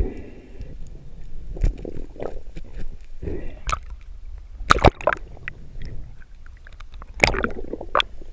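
Sea water sloshing and splashing around a camera at the surface as a freediver comes up and goes back under, with several sharp splashes, the loudest a pair about halfway through.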